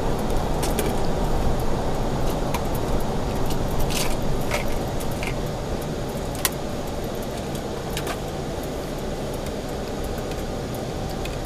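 Steady road and engine noise of a car heard from inside the cabin, with scattered light clicks and rattles. It gets slightly quieter as the car slows to a stop behind the vehicle ahead.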